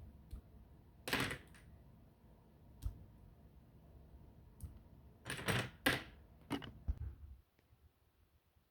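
Plastic Bionicle and LEGO pieces clicking and rattling as a model is pulled apart and the parts are set down, in short bursts. The loudest bursts come about a second in and around five to six seconds in, and the sounds stop about seven and a half seconds in.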